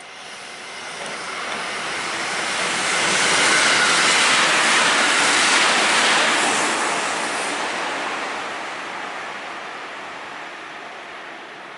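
A train passing close by: a rushing noise that builds for about three seconds, holds at its loudest for a few seconds, then slowly dies away.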